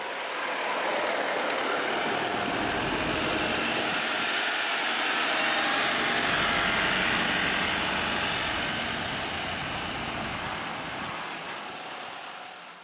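Diesel engine of a state transport bus running under load as it creeps round a tight hairpin bend, growing louder to a peak about halfway through, then fading near the end as the bus pulls away.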